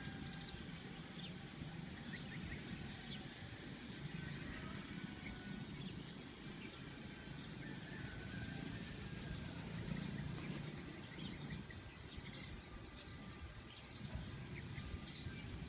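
Wild birds giving short, scattered chirps in rural countryside, over a steady low rumble.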